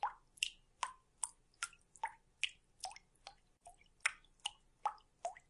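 Water dripping, about two or three drops a second, each a short plink at a slightly different pitch.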